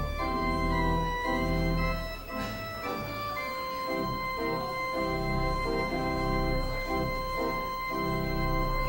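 Slow instrumental prelude music on a keyboard instrument: sustained, held chords over a low bass line, shifting every second or so.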